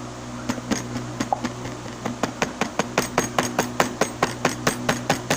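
Plastic bottle of Acrylex 3D glue being knocked hard and repeatedly to shake out the last of the glue. The knocks come a few at a time at first, then settle into a fast run of about four or five a second, with a steady fan-like hum behind them.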